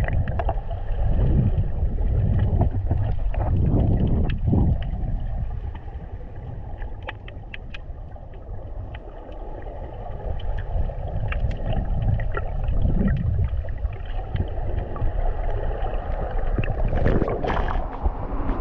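Muffled underwater sound picked up by a diver's head-mounted action camera: a low churning rumble of water and bubbles, with scattered sharp clicks and crackles, until the diver breaks the surface near the end.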